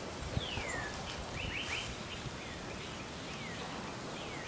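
Birds calling: several separate whistled notes that slur downward, with a few short chirps between them, over a steady outdoor background hiss.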